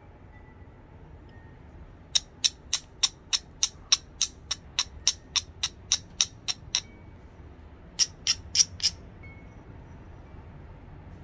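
Flat copper bar clicking against the edge of a chert biface: a quick, even run of about eighteen sharp clicks at three to four a second, then after a short pause four more, as the edge is worked to prepare a platform for a thinning strike.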